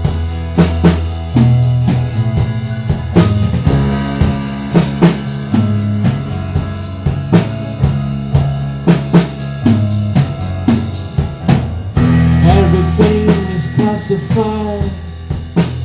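Rock band music: a drum kit keeping a steady beat on snare and bass drum over bass guitar and guitar chords. A melody line comes in near the end.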